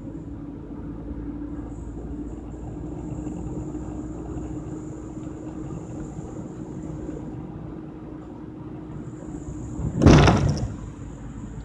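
Car driving on a paved road, heard from inside: a steady rumble of engine and tyres. About ten seconds in, a loud, brief thump as the car and camera are jolted.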